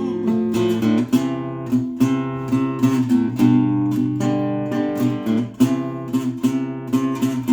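Acoustic guitar strumming chords in a steady rhythm, an instrumental passage between sung lines of a country ballad.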